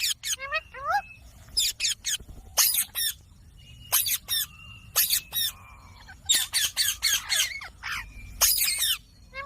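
Indian ringneck parrots giving harsh, screeching squawks in short bursts, some run together in quick clusters, with brief pauses between.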